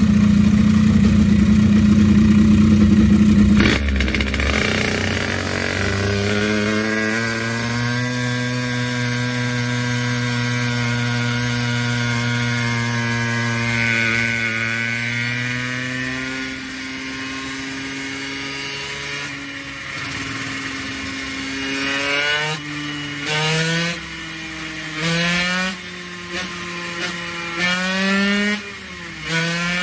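Puch moped's tuned 70cc two-stroke engine on a dyno: after a loud steady noise for about the first four seconds, it settles to idle, then is blipped about six times near the end, the pitch rising and dropping with each blip.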